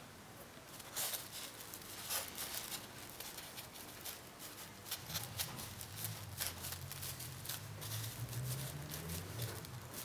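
Fingers handling a cling-film-wrapped polystyrene block and soft fondant, giving scattered faint clicks and crinkles of the plastic film. A low hum joins about halfway through and fades near the end.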